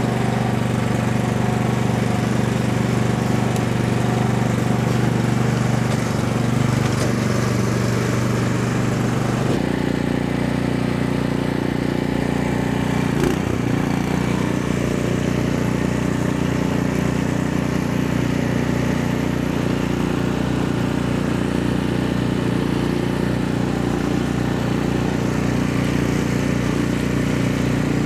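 Cub Cadet 2X 30-inch MAX snow blower's 357 cc four-stroke OHV engine running steadily just after starting. About ten seconds in, the tone changes abruptly where the sound cuts to the same engine running outdoors.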